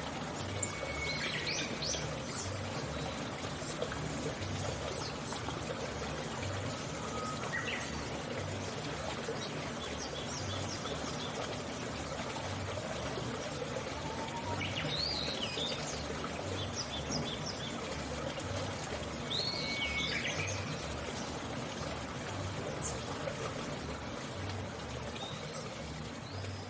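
Wild birds giving a few short whistled calls over a steady trickle of running water, with a soft low beat pulsing evenly underneath.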